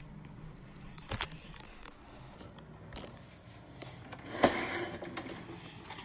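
Scattered clicks and knocks from handling the 1980 Electrolux Olympia 1 vacuum's wand and power nozzle, with the motor not running. The sharpest click comes about four and a half seconds in, followed by a short burst of noise.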